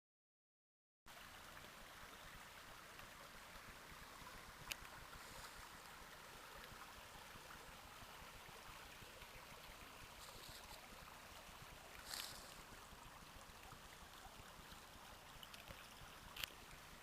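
Faint, steady rush of a small mountain stream, starting about a second in, with a few brief clicks over it.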